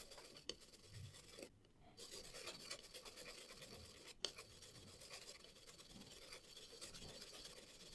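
Faint scratching and rubbing as a dirty circuit board is scrubbed clean, with a few small ticks, the sharpest about four seconds in.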